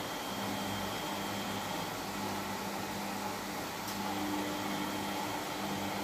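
Siemens front-loading washing machine running mid-wash with water in the drum, a Miele washer running beside it: a steady mechanical hum. A low motor tone breaks off and resumes every second or so, and a higher steady tone joins about four seconds in.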